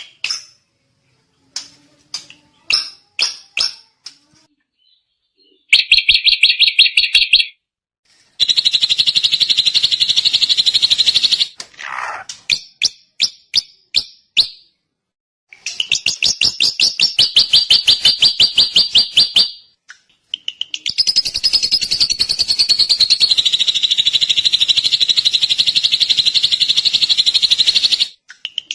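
Drongo singing: scattered clicks and short bursts of notes, then long, fast trills of rapidly repeated high notes lasting several seconds each, with a brief whistled note in between.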